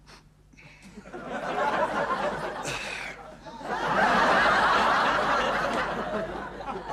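Studio audience laughing in two waves: it starts about a second in, eases briefly, then swells louder about four seconds in and tapers off near the end.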